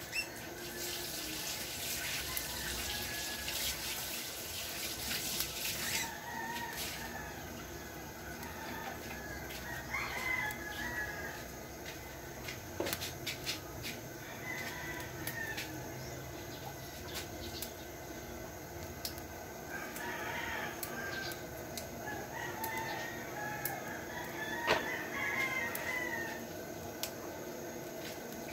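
Rooster crowing several times, with a hiss during the first six seconds and scattered sharp clicks.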